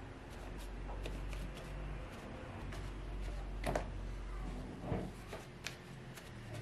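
Folded tissue rubbed and dabbed over wet watercolour paper to lift off paint from a fresh wash: a soft, steady scuffing with a low rumble from the table and a few sharper taps, the loudest two about midway.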